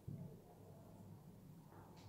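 Near silence: faint room tone, with one soft, faint sound at the very start.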